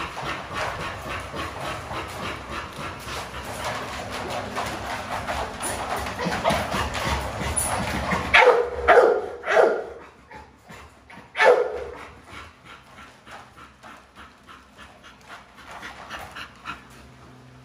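XL American Bully dogs whining and whimpering excitedly for raw chicken at feeding time. A few loud, short barks come about eight to twelve seconds in, and after them it is quieter.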